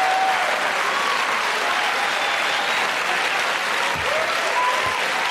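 Studio audience applauding steadily after a joke's punchline, with a few cheers.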